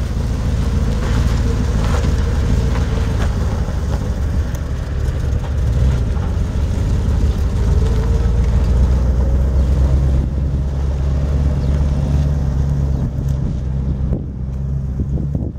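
Propane-fuelled V8 of a 1974 Dodge 110 pickup running as the truck drives along, a low steady rumble; the seller lists this engine as running rough. It grows fainter about fourteen seconds in as the truck pulls away.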